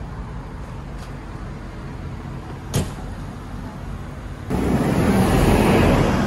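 City street traffic: a steady low rumble of road vehicles, with a single sharp click a little before the middle. Near the end a louder rush of a vehicle passing close by swells and then eases off.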